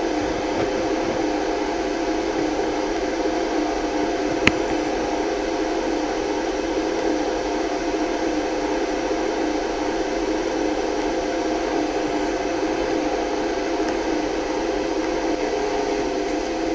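Steady whirring hum and air rush inside a moving lift car travelling fast between floors, with one sharp click about four and a half seconds in.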